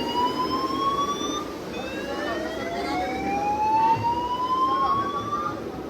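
Building fire alarm sounding a slow rising sweep, set off by a burst in the fire suppression system. One sweep ends just over a second in, and the next climbs steadily for nearly four seconds.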